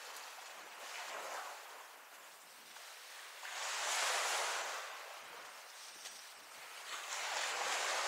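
Waves breaking and washing up the beach, rising and falling in surges: a small one about a second in, a bigger one about halfway through, and another building near the end.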